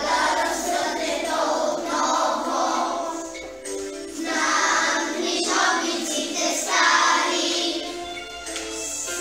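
A children's choir singing a patriotic song to a full instrumental accompaniment.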